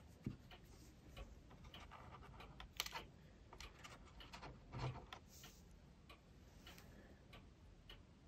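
Near silence with faint, irregular small clicks and taps as a tiny plastic figure is picked up off a model ship's wooden deck, with two slightly louder taps about three and five seconds in.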